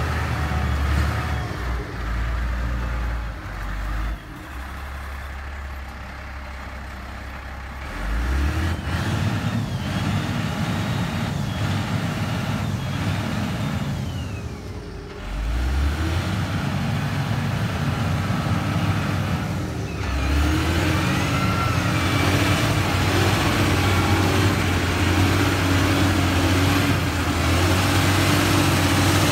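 LiuGong 4180D motor grader's diesel engine running as the grader pushes and levels earth with its blade, the engine note dropping and rising with the load and changing abruptly a few times.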